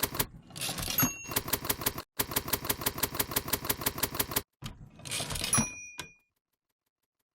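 Typewriter sound effect: bursts of rapid keystrokes at about ten a second with short pauses between them. Twice, about a second in and near the end, there is a carriage-return sweep finished by a bell ding. It ends with one last click and then stops.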